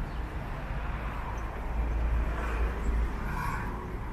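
City street traffic: a steady low rumble of cars on a multi-lane road, swelling a little around the middle.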